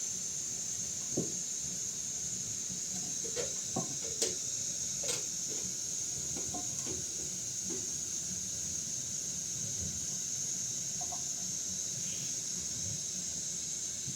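A steady high hiss, with a few light knocks and clicks in the first half.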